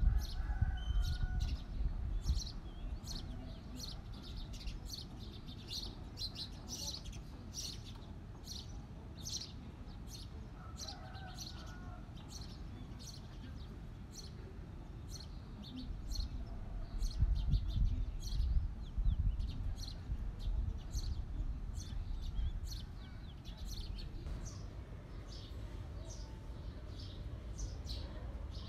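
Small birds chirping over and over in the background, short high chirps about twice a second. Low bumps and rubbing from hands working flour and dough in a steel bowl come up at the start and again about two-thirds of the way through.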